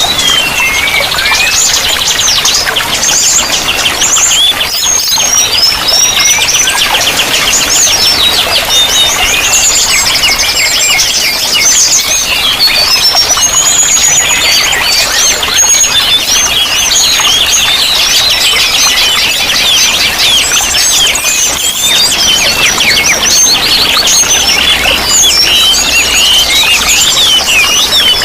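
Many songbirds of several kinds chirping, trilling and calling over one another in a dense chorus, high and rapid, over the steady sound of running water.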